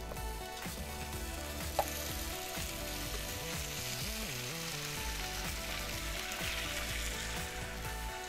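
Marinated beef strips sizzling in oil as they are poured onto a hot flat-top griddle; the sizzle grows as more meat lands. A single sharp click about two seconds in.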